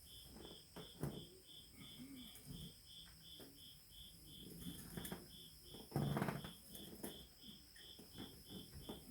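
An insect chirping steadily in a high, even pulse, about three to four chirps a second. Over it come scattered light knocks and clinks of tool work, with a louder clunk about six seconds in.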